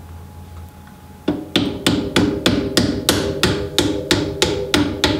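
Copper-headed mallet tapping a steel bolt through the damper's top eyelet bush and chassis mount. About a second in, a steady run of light strikes begins at about three a second, each with a short metallic ring.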